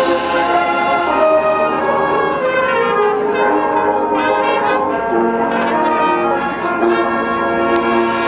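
Marching band brass section playing held chords that shift every second or so.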